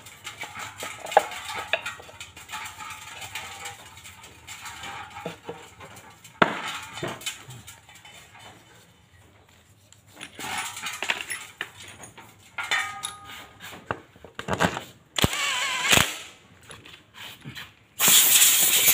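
Metal clutch cover of a Yamaha Vega ZR engine being handled and seated onto the engine case, with scattered clicks, knocks and a few sharp taps. About a second before the end a cordless impact driver starts up loud, running in the cover bolts.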